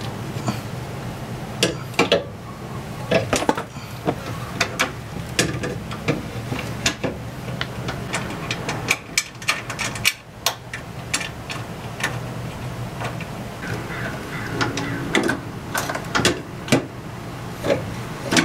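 Irregular clicks, taps and knocks from an aftermarket oil cooler and its mounting hardware being handled and fastened by hand, over a steady low hum.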